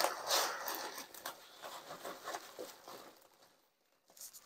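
Hands rummaging through foam packing noodles in a cardboard box, a dense rustling that dies away about three seconds in.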